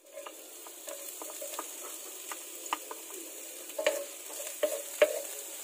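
Chopped red onion sizzling in hot cooking oil in a nonstick frying pan, the sizzle starting as the onion goes in. A wooden spatula scrapes and taps against the pan as it stirs, with a few sharper taps about four and five seconds in.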